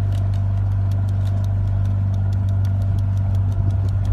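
Motorboat engine running at a steady speed, a loud, even low drone, with a quick, even ticking over it.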